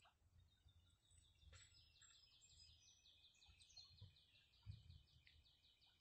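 Faint songbird trill: a long run of rapidly repeated high notes, starting about a second and a half in, over quiet outdoor background.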